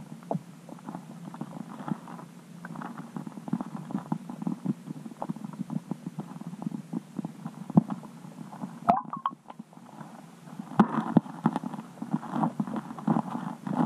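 Muffled underwater knocking, clicks and a low rumble picked up by a camera submerged under the ice, with a brief squeaky warble about nine seconds in and denser knocking near the end.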